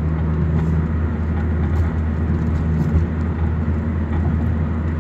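Cabin noise of a car driving along a city street: a steady low hum of engine and tyres on the road, heard from inside the car.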